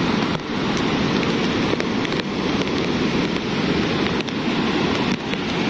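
A lahar, a volcanic mudflow of water, ash and rock, rushing steadily down the river channel, mixed with heavy rain, with a few light ticks.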